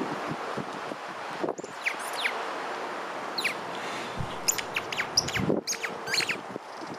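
Small birds chirping outdoors: scattered short, quick downward-sweeping chirps, in a cluster about one and a half seconds in and a denser run from about four and a half to six and a half seconds, over a steady outdoor background.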